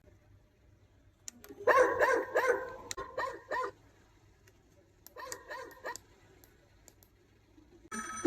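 A click, then dog barking in two bouts: a run of barks lasting about two seconds, and a shorter one about a second long a little later.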